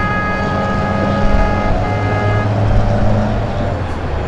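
Street traffic: a vehicle horn sounds a held chord for about two and a half seconds, with a short break partway through, over the low running of a passing vehicle's engine.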